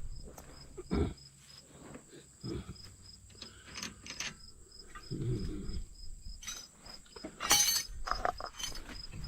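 Crickets chirping in a steady, evenly pulsing trill, with scattered clicks and knocks from parts and tools being handled on the truck's steering, and a louder noisy burst about seven and a half seconds in.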